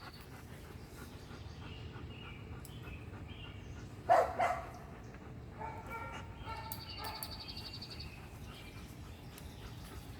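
A dog barks once, about four seconds in, over steady low background noise.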